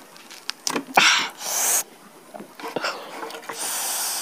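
Close-miked eating sounds: two breathy rushes, about a second in and near the end, with small wet clicks from chewing and from fingers handling the food.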